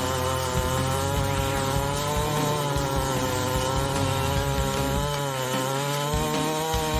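Chainsaw engine running at high revs while cutting wood, its pitch wavering and dipping under load about five seconds in.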